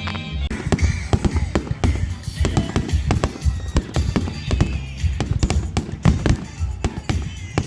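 Fireworks going off in quick, irregular succession, many sharp bangs a second, with background music playing underneath.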